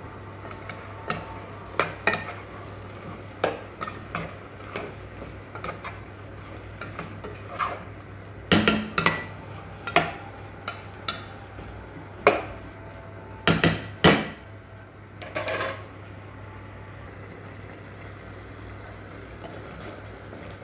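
A spoon stirring shrimp and chopped vegetables in a cooking pot, with irregular clinks and knocks against the pot's side that come thickest in the middle and stop a few seconds before the end.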